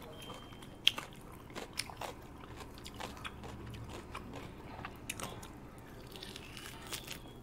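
Someone chewing and biting food close to the microphone, with irregular small crunches and clicks and one sharp click about a second in.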